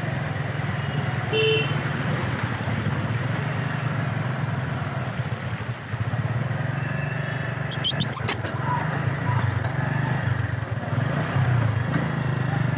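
Motorcycle engine running at a steady low hum while riding through shallow floodwater on a town road, with wind and road noise. A short beep sounds about a second and a half in.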